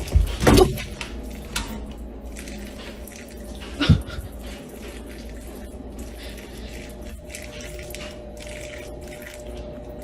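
A dog's sounds: two short, loud sounds about half a second and four seconds in, over steady background noise.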